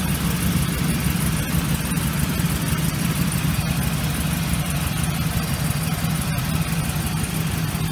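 A 2004 Chevrolet Express 3500's freshly installed replacement 6.0-litre LQ4 V8 idling steadily and running smoothly, heard from underneath the van.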